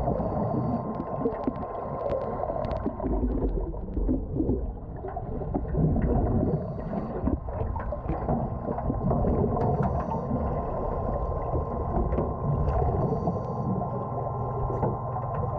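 Muffled underwater noise picked up by a GoPro in its waterproof housing: a dense, steady rumble of water with a constant hum and scattered short clicks.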